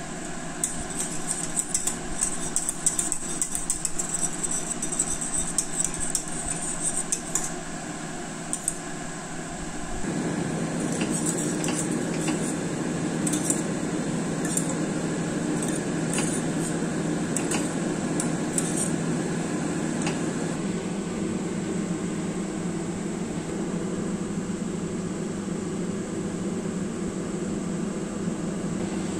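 Wire whisk clinking and scraping against the sides of a stainless steel pot as it stirs a thickening milk pudding, in bursts that stop about two-thirds of the way through. A steady hum runs underneath and gets louder about ten seconds in.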